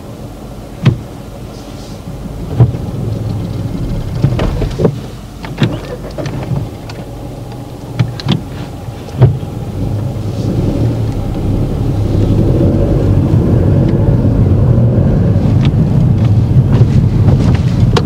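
Car cabin noise with the engine running low and a scattered series of sharp clicks and knocks from the car's controls. About twelve seconds in, the engine and road noise grow louder and stay up as the car pulls away.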